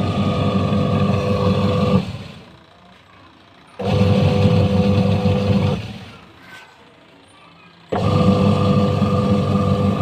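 Washing machine's newly fitted wash motor running in three spells of about two seconds, a steady hum with a whine, each one stopping and dying away before the next start. This is the normal stop-start wash action, and the machine is working properly again after the motor replacement.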